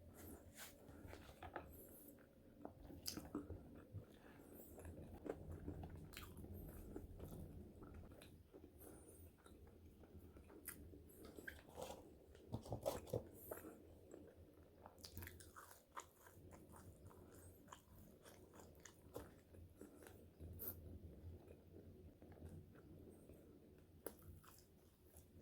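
Close-miked eating of French fries: bites and chewing with scattered crunches and soft mouth clicks, busiest about halfway through.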